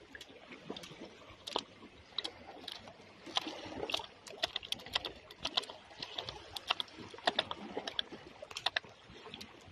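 Freshly caught Atlantic mackerel flapping against each other and the surface they lie on, making irregular quick taps and slaps that come thickest in the middle.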